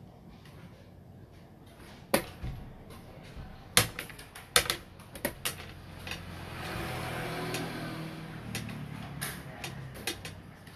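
Xiangqi pieces clacking down on a wooden board and chess clock buttons being pressed: a string of sharp clicks, the loudest about 2 and 4 to 5 seconds in, with more near the end. A softer, longer noise comes in the middle.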